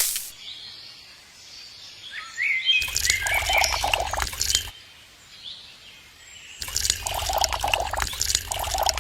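Water running or splashing in two bursts, the first about two seconds long and the second about three, each starting and stopping abruptly, with a few bird chirps before the first.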